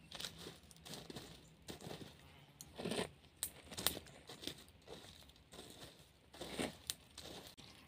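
A wooden stick scraping and poking through a bed of wood ash and charred embers: irregular crunching and rustling strokes with sharp clicks of charcoal, the strongest about three seconds in and again past six seconds.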